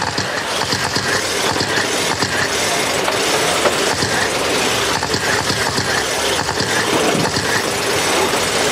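A pack of electric radio-controlled dirt-oval race trucks running laps together: a steady, busy mechanical whir of motors and drivetrains with rapid clicking and rattling.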